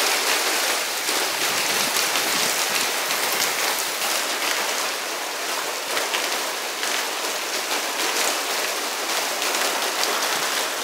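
Heavy hail falling with rain: a dense, steady patter of countless small, sharp hailstone impacts on the ground and surfaces.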